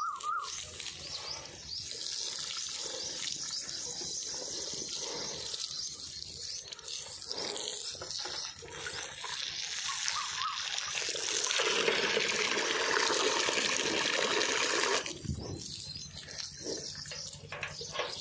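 Stream of water splashing and spattering onto a water buffalo's hide and into the metal bucket it is drinking from. The splashing grows louder and fuller about twelve seconds in, then cuts off suddenly a few seconds later.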